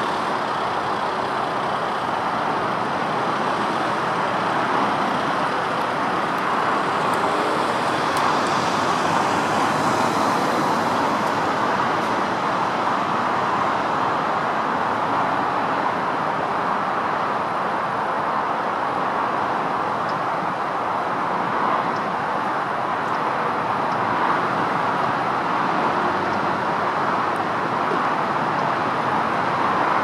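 Steady road traffic noise, an even rush of passing vehicles with no single one standing out, swelling slightly about eight to eleven seconds in.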